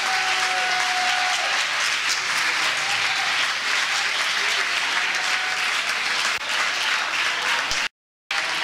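Crowd applauding steadily. The sound drops out completely for a moment near the end.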